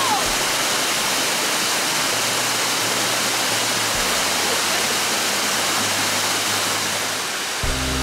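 Beulach Ban Falls pouring down a rock face: a steady rush of falling water. Music comes in near the end.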